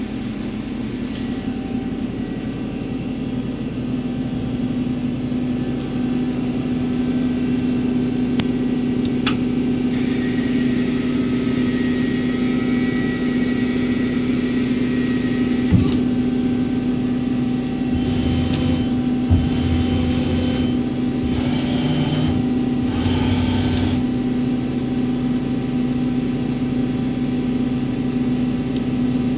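Mazak CNC lathe running with a steady machine hum. A thin whine joins about a third of the way in, and past the middle comes a run of short hissing bursts with a couple of sharp clicks.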